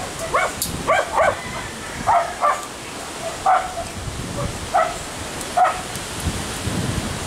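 A dog barking in short, high yips, about eight of them, unevenly spaced, over a steady background hiss.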